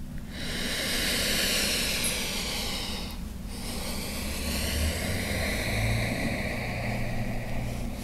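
A person breathing slowly and deeply while holding a yoga pose: a long breath of about three seconds, a brief pause, then a second long breath of about four and a half seconds.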